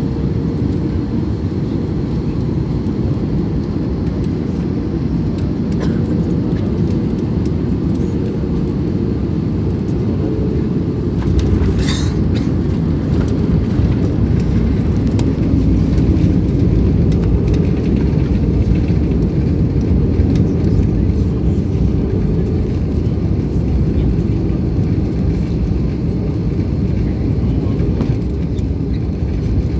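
Jet airliner landing, heard from inside the cabin: a steady low drone of engines and airflow on final approach, a sharp jolt at touchdown about twelve seconds in, then a louder rumble as the wheels roll and the jet slows on the runway.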